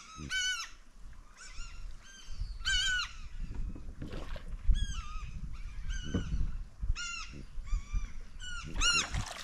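A flock of gulls calling over and over: a dozen or more short, arching calls, some overlapping, over a low rumble.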